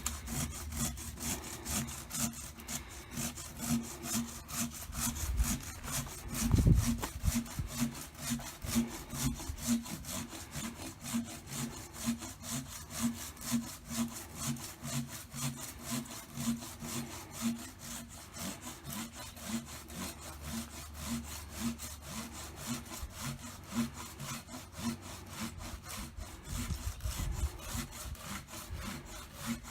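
A hand saw cutting through a fallen tree's wood in steady back-and-forth strokes, about one and a half a second. There is a dull thump about six and a half seconds in.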